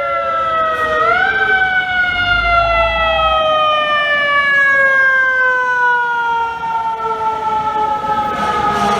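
Fire truck's mechanical siren, spun up quickly about a second in and then coasting slowly down in pitch for several seconds.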